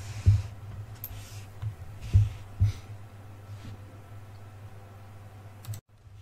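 A few muffled clicks and knocks from a computer mouse and desk, over a steady low electrical hum picked up by the microphone. The audio drops out for a moment near the end.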